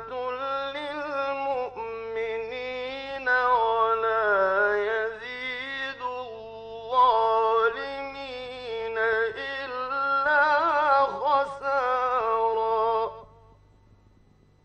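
A man's voice reciting the Quran in a slow, melodic chant, with long held notes that waver and glide up and down, broken by short breath pauses. It stops about 13 seconds in, leaving only a faint steady hum.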